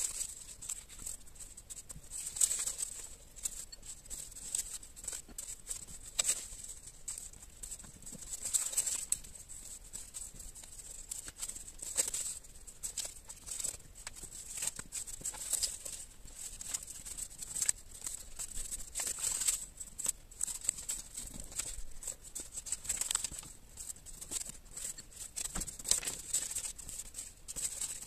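Torn strips of coloured paper rustling as they are woven over and under one another and pressed flat by hand, in short irregular rustles.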